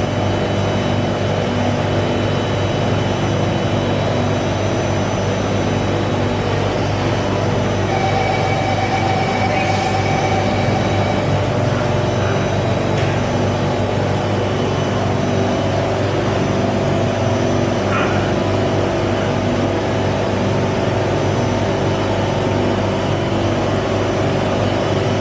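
Alstom Metropolis C751A metro train running, its IGBT-VVVF (Alstom ONIX) traction motors and inverter giving a steady hum of several held tones over a low rumble, with no rise or fall in pitch.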